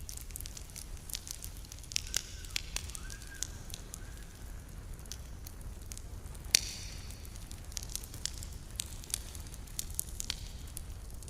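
Campfire burning with irregular sharp crackles and pops over a steady low rumble, one pop much louder than the rest about six and a half seconds in.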